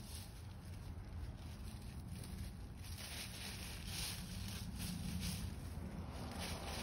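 Hens scratching and pecking through dry fallen leaves: repeated rustling and crackling of the leaves, busiest in the middle, over a low steady rumble.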